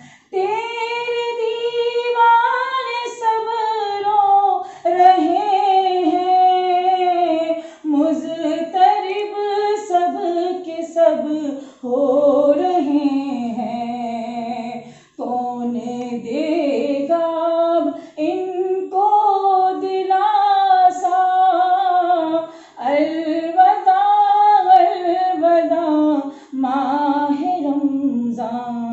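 A woman singing in long, drawn-out phrases, each separated by a short pause for breath.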